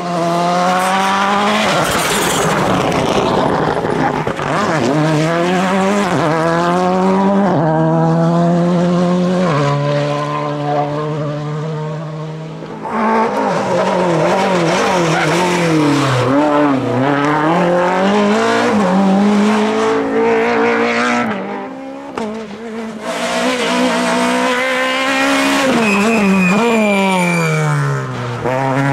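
Rally cars passing one after another at stage speed, a Volkswagen Polo, then a Renault Clio, then a Peugeot 208. Their engines rev high and fall away again and again through gear changes and lifts for the bends.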